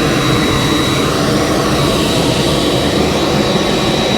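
Steady jet turbine noise, with a constant high-pitched whine over it.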